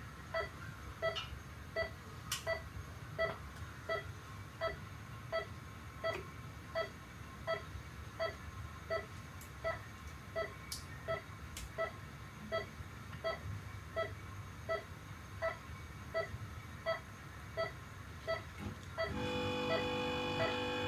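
Heart monitor beeping in a steady pulse rhythm, short pitched beeps about one and a half a second. About nineteen seconds in, a louder held tone of several notes joins under the beeps.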